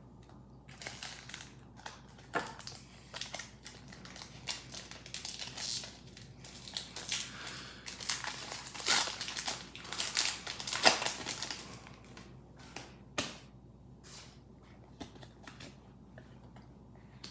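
Foil Pokémon booster pack wrapper crinkling and tearing as it is ripped open by hand: a long run of crackly rustles, loudest around the middle, dying away to a few faint ticks near the end.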